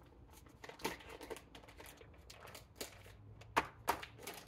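Clear plastic mushroom grow bag crinkling as gloved hands pull it open around the colonised mycelium block: faint scattered rustles, with two sharper crackles near the end.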